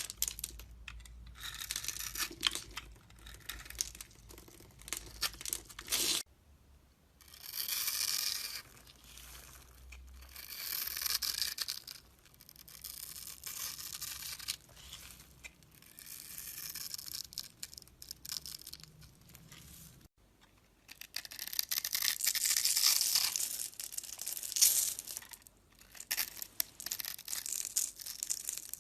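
A blade carving and shaving a bar of soap: dry, crisp scraping and crumbling strokes in passages of a few seconds each, with short breaks between them.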